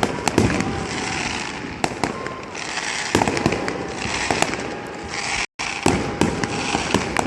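A rapid, irregular string of sharp gunpowder bangs, several a second at times, over a steady background of crackle and noise. The sound cuts out for a moment about five seconds in.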